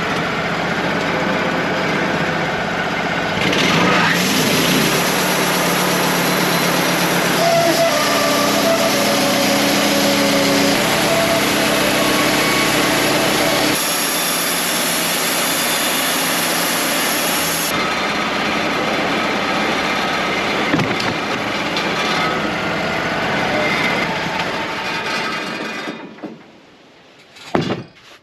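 Wood-Mizer LT35 portable sawmill running under load, its bandsaw blade cutting through a black oak log with a loud, steady engine-and-blade noise that shifts in tone a few times. The noise drops away sharply near the end as the cut finishes.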